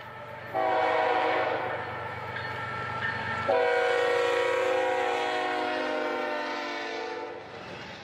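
Diesel freight locomotive's multi-note air horn sounding a long chord over the low rumble of the engines. It starts about half a second in, sounds again louder about three and a half seconds in, and fades out near the end.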